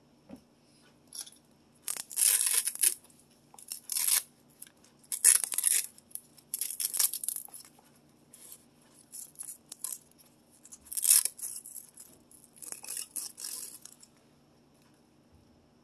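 Hands working on a bicycle cup and bottle holder: a run of short scraping, rustling bursts with a few light clicks, stopping about two seconds before the end.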